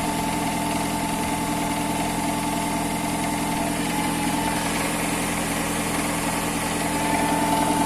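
Ford Mondeo engine idling steadily with a knock that repeats in time with the engine, plus a thin steady whine; it grows slightly louder near the end.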